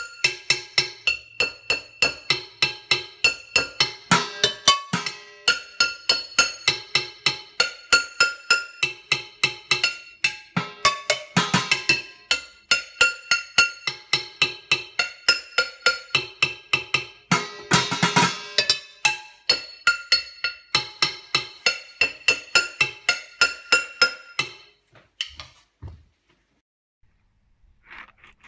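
Upturned frying pans and saucepans struck with sticks as improvised drums, in a quick steady rhythm, each hit ringing with a metallic pitch. The playing stops a few seconds before the end.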